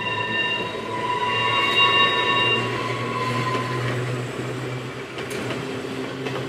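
Manx Electric Railway tramcar No. 20 and its trailer rounding a curve, the wheels squealing on the rails in a high, steady ringing that fades out about four seconds in. Under it runs a low hum, and a sharp click comes near the end.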